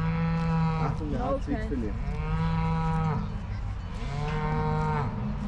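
Cow mooing: three long, steady calls of about a second each, with a shorter wavering call in between the first two.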